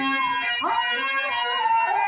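A voice singing a long, drawn-out verse line with slow pitch slides and held notes, over steady instrumental accompaniment. This is the melismatic singing of a Telugu padyam in stage drama.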